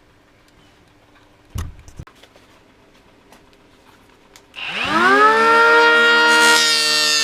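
Two handling knocks, then a Parkside 12 V brushless cordless planer is switched on. Its motor and cutter block whine up to speed in about half a second and hold a steady, high, many-toned whine. A hiss joins it near the end.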